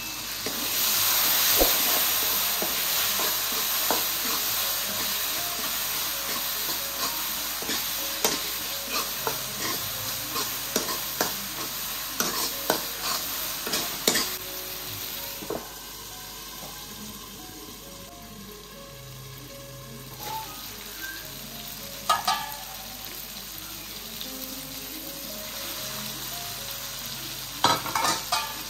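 Tomato-onion masala frying and sizzling in an aluminium kadai while a steel ladle stirs it, clicking and scraping against the pan. The sizzle is loudest a second or two in, just after soy sauce goes into the hot pan, and then eases off.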